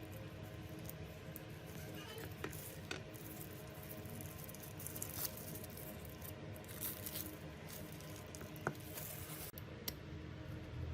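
Scattered light taps and clicks of small parts being handled, over a low steady hum.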